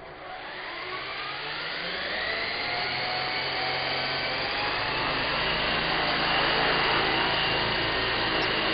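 Small electric RC helicopter (a Corona) spooling up: a rising motor whine that climbs over the first two to three seconds, then settles into a steady, growing whir of motor and spinning rotor blades.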